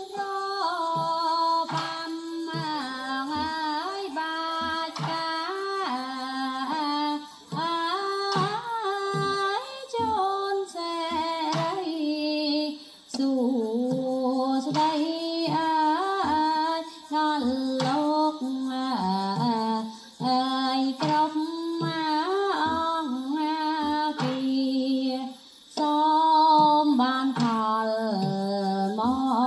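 A woman singing a slow melody with much bending and ornamenting of each note, in phrases with short breaks, over short low beats: music for an Apsara dance in the Khmer classical style.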